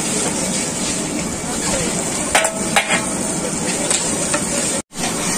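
Long metal spatula stirring and scraping fried onions and spice paste in a large iron kadai, over a steady frying sizzle, with a few sharp metal knocks against the pan. The sound cuts out for a moment near the end.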